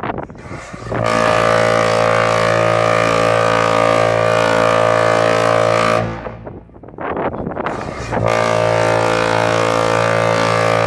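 Queen Mary 2's ship's horn sounding two long, deep blasts of about five seconds each, sounded as the liner departs port. Each blast is a steady chord of many tones, and between them the sound dies away for about two seconds.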